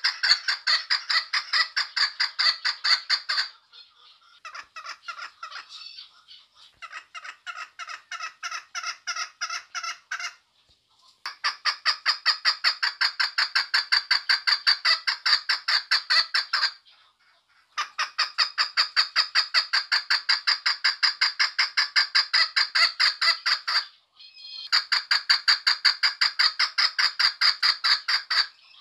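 Female chukar partridge calling: long bouts of rapid, evenly repeated notes, broken by short pauses, with a softer, more broken stretch after the first bout.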